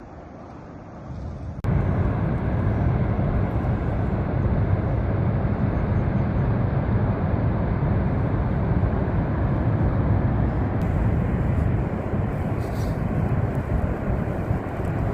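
Montmorency Falls, a tall waterfall, making a steady rushing roar that is heaviest in the low end. It cuts in much louder about a second and a half in.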